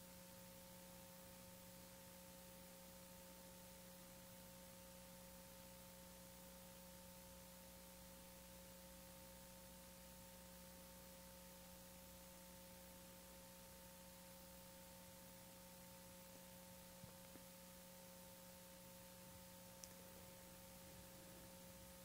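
Near silence: a faint, steady electrical hum of a few held tones over hiss, with a couple of tiny clicks near the end.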